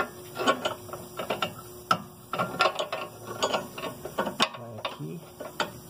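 Ratchet wrench clicking in short bursts of strokes while a nut is run onto a new stabilizer (sway bar) end link in a car's suspension.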